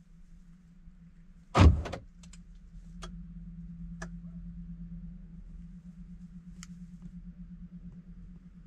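A Volkswagen T3 van door slams shut about one and a half seconds in. A few faint sharp clicks follow over the next several seconds, over a low steady hum.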